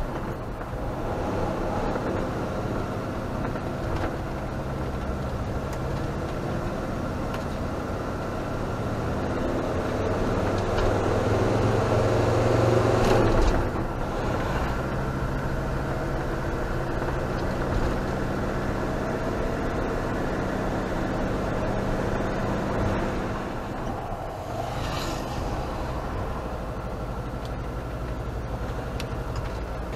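Camping car's engine and road noise heard from inside the cab, pulling uphill on a steep mountain road. The engine grows louder over a few seconds and drops back abruptly a little before halfway.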